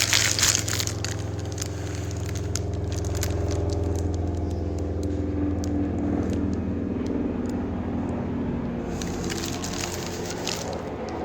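Helicopter passing, a steady low drone that swells a little mid-way and eases off toward the end. Crinkling of package wrapping can be heard at the start and again near the end.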